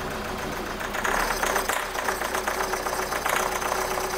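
Hyundai Grand Starex diesel engine idling roughly with a rapid clatter, not yet warmed up after its cylinder head was refitted. About a second in the running gets louder and rougher.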